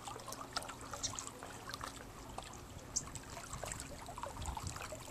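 Small lake waves lapping and trickling against a rocky shoreline: a faint, irregular patter of little splashes and ticks over a soft wash of water.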